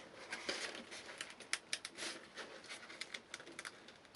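Sail-bag fabric of a homemade boat water bucket rustling and crinkling as it is handled and a small hole is cut in its edge, with a string of light clicks and snips.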